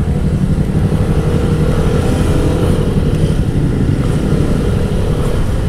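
Motorcycle engine running steadily at low speed in a traffic jam, a continuous low rumble heard from the rider's seat with other traffic around.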